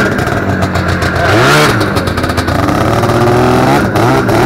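Ski-Doo Formula Plus snowmobile's 521 cc two-stroke engine, running through a new aftermarket exhaust can, revving as the sled pulls away. It gives one big rise and fall of revs about a second and a half in, then smaller blips of throttle near the end.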